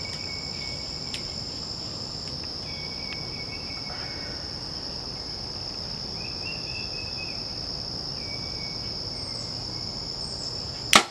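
Steady high-pitched insect chorus with a few faint bird chirps, then near the end a single sharp crack of a compound bow being shot as the string is released.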